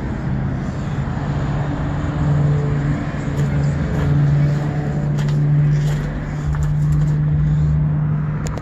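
Motor vehicle engine running with a steady low hum from about two seconds in until near the end, over road-traffic noise.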